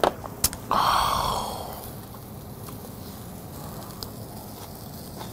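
Two sharp taps of tableware, then a loud breathy exhale that fades over about a second and a half; after that only faint steady background hiss.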